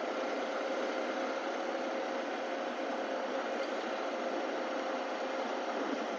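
Steady riding noise from a Yamaha R15M motorcycle under way: a continuous rush of wind with a muffled engine hum and a faint steady tone. It is heard through the rider's wireless clip-on mic, so it sounds thin, with no low rumble.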